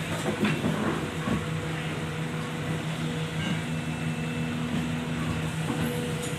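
Heavy diesel engine running steadily at constant speed, with a few light knocks in the first second and a half.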